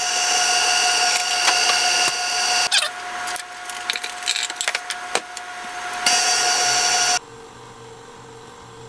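KitchenAid Artisan stand mixer running on low speed, its paddle beating cake batter: a steady motor whine. From about three seconds in, a bowl of flour mixture is tipped into the mixer with a run of knocks and clatter. About seven seconds in the sound drops suddenly to a quieter steady hum.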